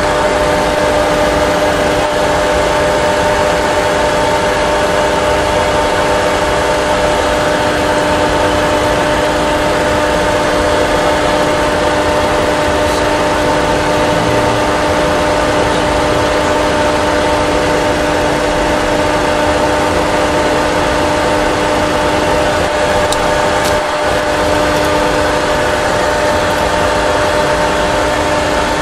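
Steady cockpit noise of a Boeing 737 Classic full flight simulator: the simulated engine and airflow hum with several steady tones, running evenly throughout while the aircraft flies on one engine after a simulated engine failure.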